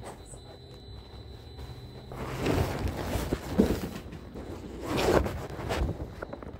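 Scratchy rubbing and scraping handling noise on a phone's microphone, in two stretches, the first about two seconds in and the second about five seconds in. A faint steady high-pitched tone runs underneath throughout.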